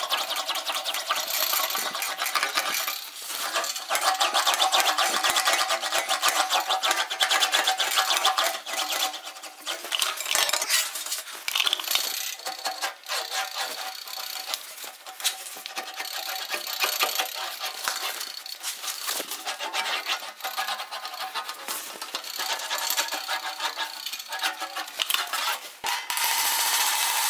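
Steel floor-pan sheet rolled back and forth through an English wheel, the thin sheet rattling and clinking in a fast, continuous run of metallic ticks as the panel is planished smooth. Near the end it gives way to hammer blows on the panel.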